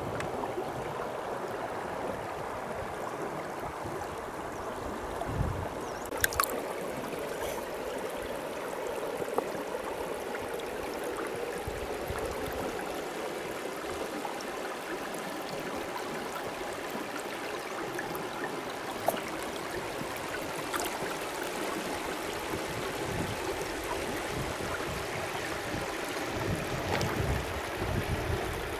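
Steady rush of running water, with a few short knocks scattered through it, the sharpest about six seconds in.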